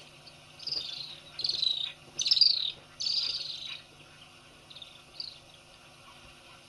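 Little swifts calling in flight with their shrill trill: four trills in quick succession over the first four seconds, the third loudest, then two brief faint ones about five seconds in.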